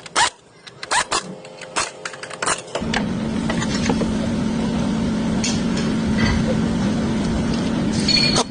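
A few sharp clicks and knocks, then a steady mechanical hum with one low tone that starts about three seconds in and stops suddenly.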